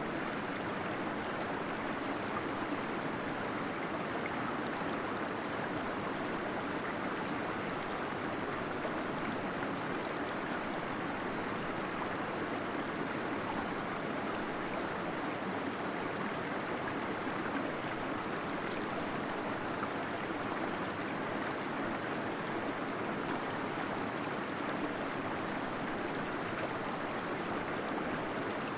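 Small waterfall pouring and gurgling steadily inside a cave, an even rush of water with no breaks.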